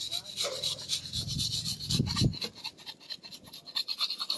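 A mason's steel trowel scraping and working cement mortar, a quick run of repeated rasping strokes.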